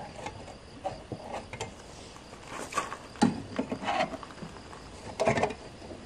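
Scattered small clicks and scrapes of hands fitting a cover plate into its bracket under the gas valve of a Dometic gas fridge's burner compartment, with a few louder knocks of handling about three seconds in and near the end.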